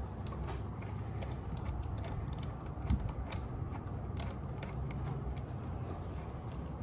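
Faint, irregular light clicks of a hand tool driving a screw in to hold a motorcycle's cover in place, with one sharper tick about three seconds in, over a low steady hum.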